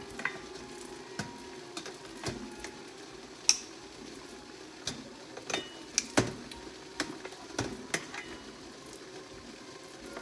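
Scattered clinks and knocks of cookware over a steady low hum, with the two loudest knocks about three and a half and six seconds in.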